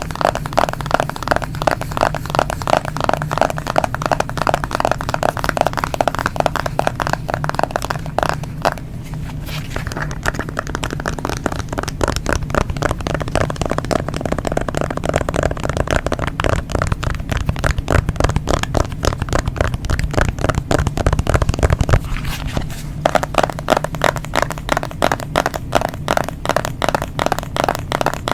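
Rapid, continuous tapping on a smartphone, with a short lull about nine seconds in.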